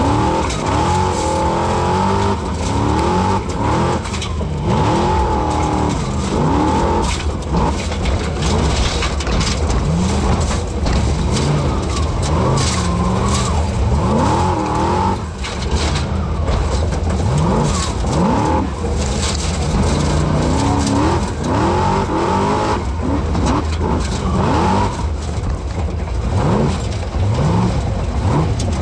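Formula Offroad race car's engine heard from inside the cockpit, revving up and down over and over while the car climbs and works over steep loose gravel and rock. A high whine comes and goes, and frequent knocks and rattles sound through the chassis.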